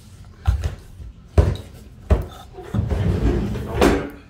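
Metal speed square and vinyl planks handled on the floor while a cut line is marked: four sharp knocks and taps, with a rougher scraping stretch in the last second or so.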